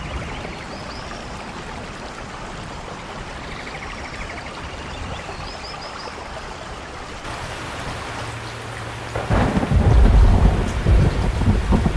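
Steady rain with a few faint bird chirps, then a loud low rumble of thunder breaks in about nine seconds in and goes on over the rain.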